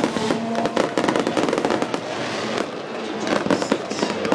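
Aerial fireworks bursting in quick succession: a dense run of bangs and crackles.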